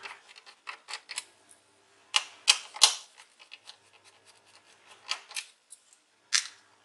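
Irregular small clicks and taps of a precision screwdriver and fingers on the laptop's battery screws and plastic chassis as two screws are taken out, the loudest cluster of clicks about two to three seconds in.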